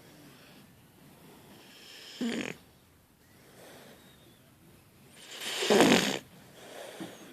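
A puppy snoring in its sleep: two snoring breaths, a short one about two seconds in and a longer, louder one near the end, with soft breathing between.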